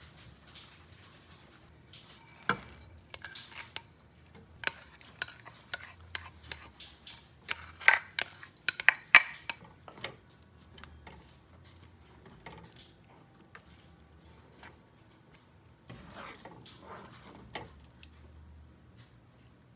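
A ladle clinking and scraping against a stone-coated pot as cooked mung beans are scooped in and stirred through the liquid, with the loudest clinks about eight to nine seconds in and soft sloshing near the end.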